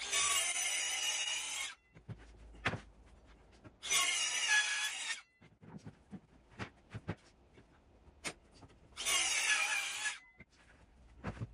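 Power router with a side fence cutting a rebate in green oak, in three bursts of about a second and a half each, with knocks and clicks of the tool and timber being handled between them.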